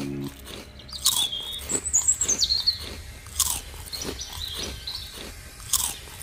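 A small pet crunching and chewing dry food, with repeated crunches about two or three a second and high chirping squeaks over them.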